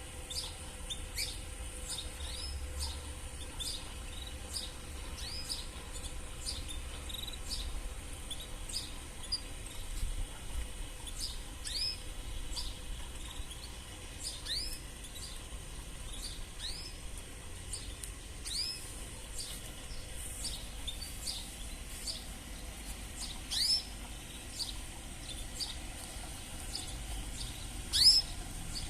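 Canaries giving short, sweeping chirping calls one after another, with a louder call near the end.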